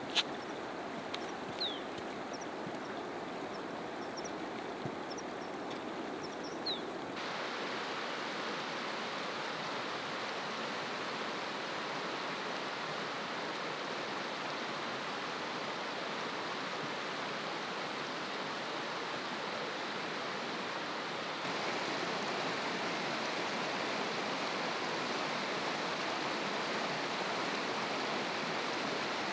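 Steady rush of running water from a small mountain stream. In the first several seconds a bird gives a few short high chirps. The rush changes abruptly twice, about seven and twenty-one seconds in.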